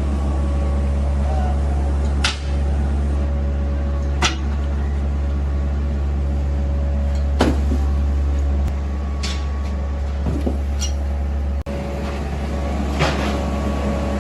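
Workshop machinery running with a steady low hum and a few steady higher tones, and sharp knocks every couple of seconds. The hum drops a little about two-thirds of the way through.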